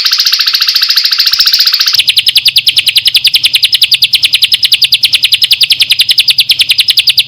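Songbird singing a fast, even trill of repeated high notes, about ten a second. About two seconds in it switches to a sharper, steadier rattle. This is the kind of song kept as a training track for cage birds.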